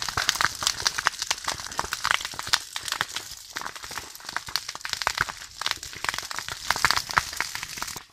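Dry cane and grass burning close by: dense, irregular crackling and popping of the burning stalks over a steady hiss of flame.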